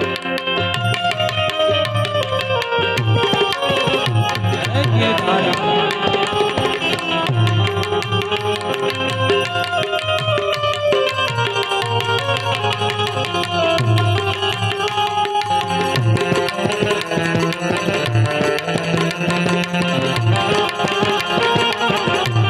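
Instrumental passage of Gujarati folk music: a hand-drum rhythm with deep bass strokes under a sustained melodic line, with no singing.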